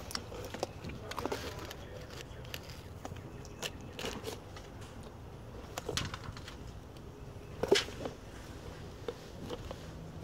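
Close-up mouth noises of a child sucking and smacking on a red candy stick: scattered short clicks and wet smacks, one louder smack about three quarters of the way through, over a faint low rumble.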